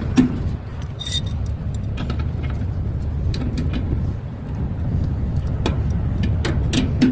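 Steady low rumble of an idling vehicle engine, with a few scattered metal knocks and clicks from tools working on a trailer's leaf-spring bolt, one ringing strike about a second in.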